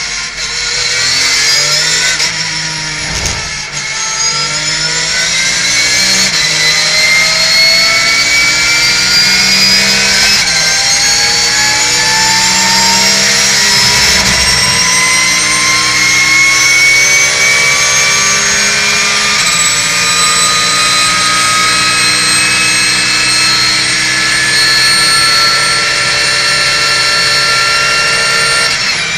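Porsche 911 GT3 Cup race car's flat-six engine at speed, heard from inside the cockpit. Its pitch falls at first, then from about four seconds in climbs slowly for some fifteen seconds before levelling off.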